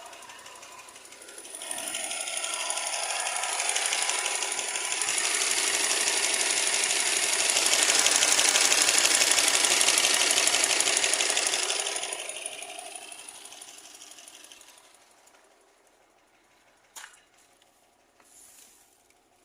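Engine running with a rapid, even metallic ticking knock, which the owner suspects comes from the hydraulic lifters or the fuel injectors. The clatter grows louder over the first few seconds and dies away after about twelve seconds, followed by a single click.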